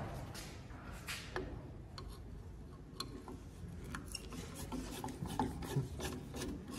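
Screwdriver working the mounting screw on a tractor rear work light's metal bracket: faint metal-on-metal scraping with scattered small clicks.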